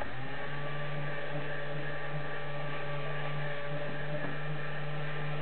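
Small electric motor of a DCC-controlled N scale model railway turntable running with a steady hum while it turns, settling in pitch just after it starts and cutting off after about five seconds.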